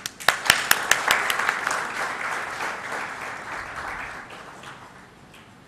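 Audience applauding. A few loud separate claps open it, build quickly into steady clapping, and fade out after about five seconds.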